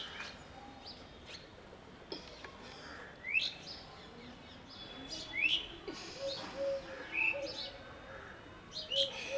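Birds chirping: a few short calls that sweep upward, seconds apart, with other brief chirps, and a run of short lower notes in the second half.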